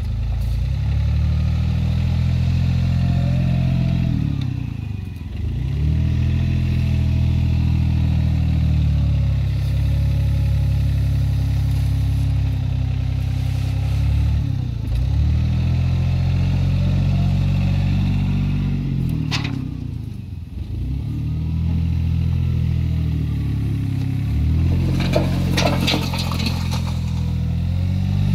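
Small Komatsu wheel loader's engine running under load, its speed dipping and picking up again several times as the bucket scoops and lifts sand. A brief clatter comes near the end.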